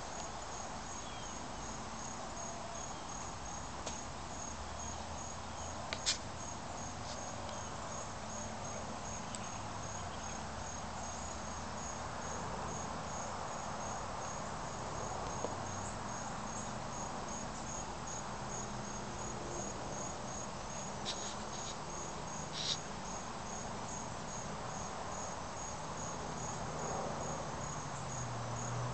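Insect chirping steadily outdoors: a high, even pulse repeating about two to three times a second, over a faint steady background hiss, with a few brief clicks.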